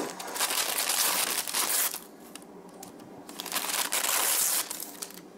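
Disposable plastic piping bag crinkling as it is handled and pulled open, in two spells: about the first two seconds, then again for about a second later on.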